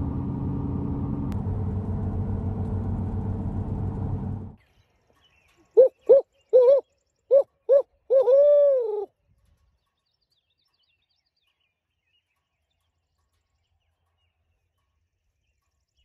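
Steady hum of a pickup truck's engine heard inside the cab, cutting off suddenly about four and a half seconds in. A loud barred owl-style 'who-cooks-for-you, who-cooks-for-you-all' hoot series follows: about eight hoots, the last one long and drawn out.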